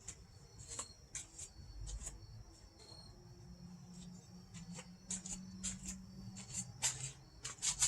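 Faint scattered clicks and taps of door glass and its metal channel being handled and set into the door's window track, over a steady high insect trill like crickets.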